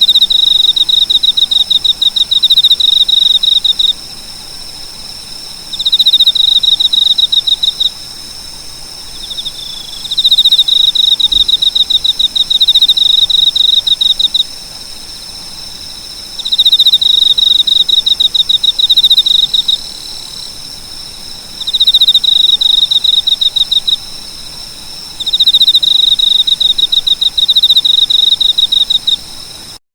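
Cricket chirping in six bouts of rapid pulses, each lasting two to four seconds with pauses of about two seconds between, over a faint steady high-pitched background hum. The chirping cuts off abruptly near the end.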